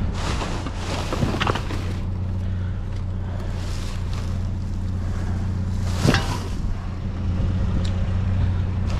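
Rummaging through trash in a dumpster: rustling of bags and junk, with a sharp knock about six seconds in, over a steady low hum.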